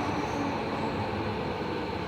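Running noise inside a Tobu 70000 series train car: a steady rumble of wheels on rail with a faint high squeal near the start, easing slightly in loudness.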